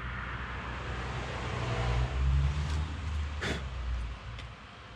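A motor vehicle's low engine rumble that swells to a peak about two seconds in and then fades away, as a vehicle passing by would. A brief sharp knock comes about three and a half seconds in.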